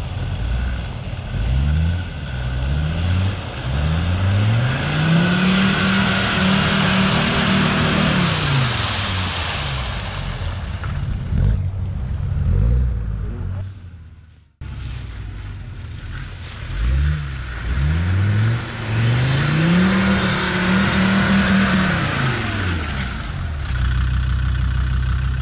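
Land Rover Discovery 2 TD5's five-cylinder turbodiesel revving hard as it drives through deep mud, its revs climbing and falling several times and held high for a few seconds twice. The sound cuts off abruptly about halfway through, then the engine revs up again.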